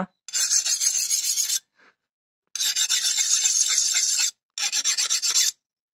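A hand file scraped across a freshly quenched knife blade made from plough-disc steel, in three rasping strokes of one to two seconds each, the last one near the end. It is a file test of the hardened blade, which the maker finds very hard.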